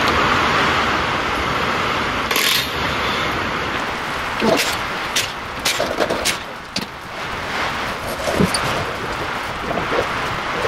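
Heavy rain heard from inside the shop, a loud steady hiss. About halfway through, a run of sharp clicks and knocks comes as a wheel is pulled off a truck's front hub.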